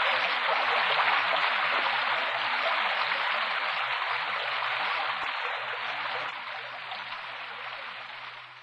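Rain falling on a ship's steel deck and fittings, a steady hiss that fades away over the last few seconds.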